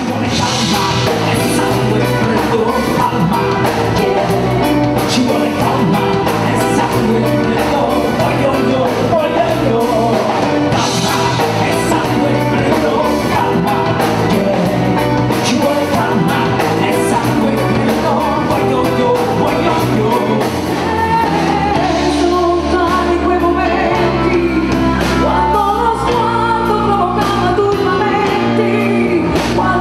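Live pop-rock band playing a song: a woman and a man singing into microphones over drums and electric guitar.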